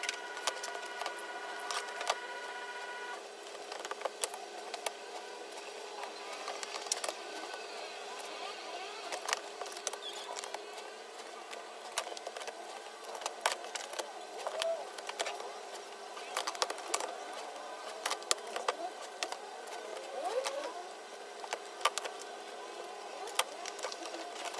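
Handling of cut sheet pieces on a cutting mat: a steady scatter of clicks, taps and light slaps as pieces are picked up, shuffled and stacked. A faint steady hum runs underneath, with a few extra steady tones for the first three seconds.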